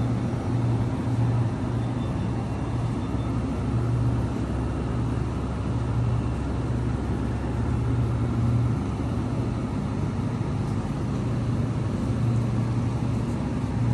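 Steady low droning hum of supermarket refrigerated display cases and ventilation, with no sudden sounds.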